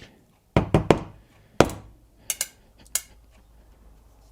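A few sharp knocks and clicks of small metal pedal parts and tools being handled on a workbench as a bicycle pedal is taken apart. Three quick knocks come about half a second in, a louder one follows a moment later, and two lighter clicks come after it.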